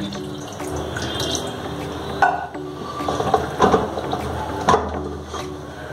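Water poured from a steel jug onto fresh chhena curds in a cotton straining cloth over a steel colander, rinsing the curds, with a few sharp clinks of steel vessels.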